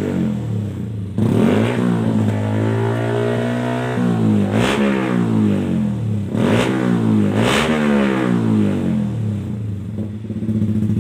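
Yamaha MT-15's single-cylinder engine breathing through an Austin Racing aftermarket exhaust, revved in four throttle blips that rise and drop back, then settling to a steady idle near the end.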